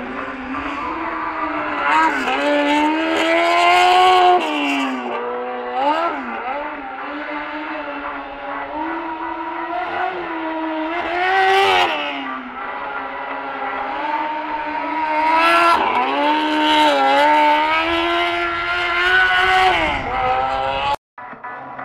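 Rally car engine revved hard, its pitch climbing and dropping again and again through throttle bursts and gear changes as the car is driven round a tight course. The sound breaks off abruptly near the end.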